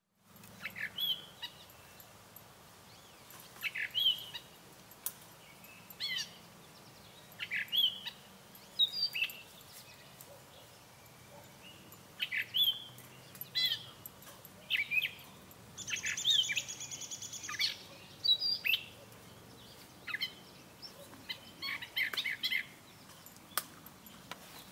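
Gray catbird singing: a rambling string of short, varied squeaky phrases, one every second or two, with a longer harsher, rattly phrase about two-thirds of the way through.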